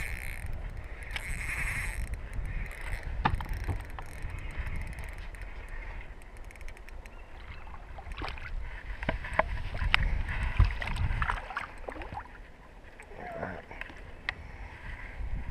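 Wind rumbling on the microphone, with the whir of a spinning reel being wound in short spells near the start and scattered sharp clicks and splashes as a hooked bream is brought to the surface.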